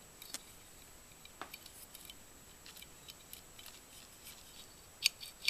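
Small metal parts on an AR-15 lower receiver being handled and worked by hand: faint scattered clicks and taps, with two sharper clicks near the end.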